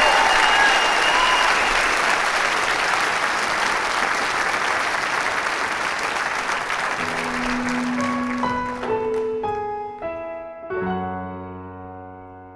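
Audience applauding, dying away as a piano begins, one low held note about seven seconds in, then rising single notes gathering into held chords near the end.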